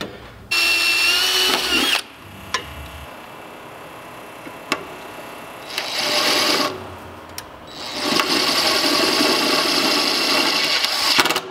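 Cordless drill driving self-tapping screws into the sheet-metal intake bracket and cowl, running in three spells: a short one with a rising whine near the start, a brief one about six seconds in, and a longer one of about three seconds near the end. A couple of sharp clicks come between the runs.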